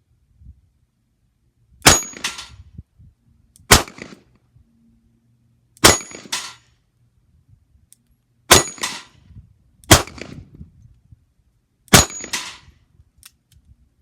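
Colt Agent .38 Special snub-nose revolver fired six times at a slow, even pace, about two seconds apart, with 125-grain lead cowboy-action rounds. Several of the shots are followed a split second later by the ringing clang of a hit steel plate.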